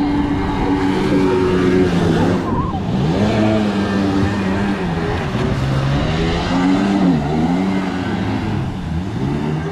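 Sea-Doo Rotax two-stroke engine in a mini jet jon boat, revving up and down as the boat throws spray in hard turns; its pitch drops and climbs again several times.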